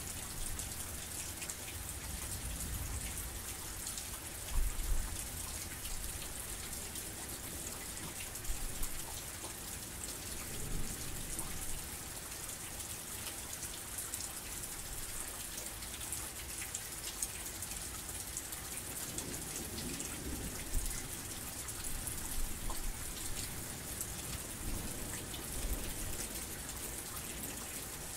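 Heavy rain falling steadily: a dense hiss of drops with scattered individual drop ticks, and a few short low thumps.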